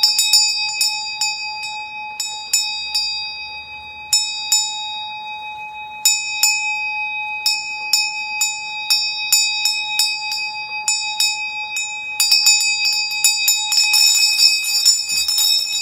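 Brass hand bell shaken over and over, its clapper striking again and again and a steady ringing tone sustaining between strikes. There is a short lull a few seconds in, and the strikes come faster and denser near the end.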